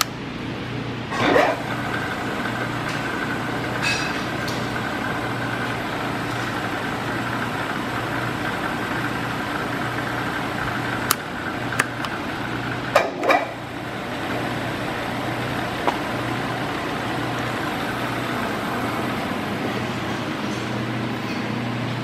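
Drill press running with a steady hum and a thin whine. A short loud clatter comes about a second in and two more come around the middle, after which the whine fades while the hum carries on.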